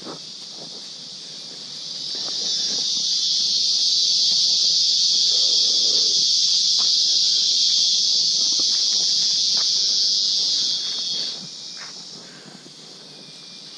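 A cicada's loud, high buzz that swells up about two seconds in, holds steady for around eight seconds, then fades away.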